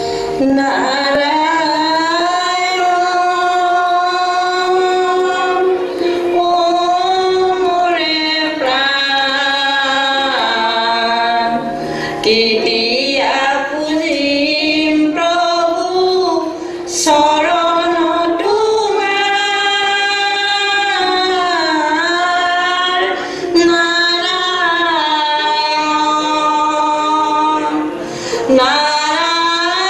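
A woman singing a slow song with long held notes that glide between pitches, set to music.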